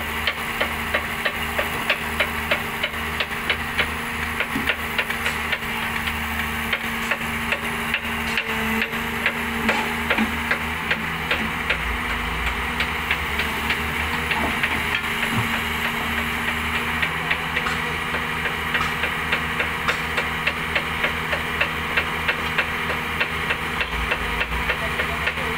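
Diesel engine of a hydraulic excavator running steadily while it lifts and turns over a heavy track frame on a chain, with a regular ticking about twice a second and a faint high whine that wavers in pitch.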